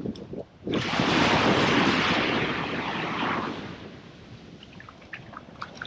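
A wave breaking on the beach and washing up the sand: a sudden rush of surf about a second in that fades away over the next few seconds.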